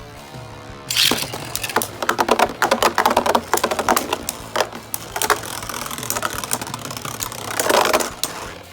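Spinning Beyblade tops clashing in a plastic stadium: rapid, irregular clicks and knocks of plastic striking plastic, starting about a second in and growing denser again near the end.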